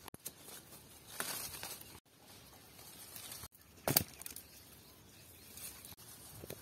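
Guava leaves and branches rustling as fruit is picked by hand, with one sharp thump about four seconds in as a guava drops into a woven basket.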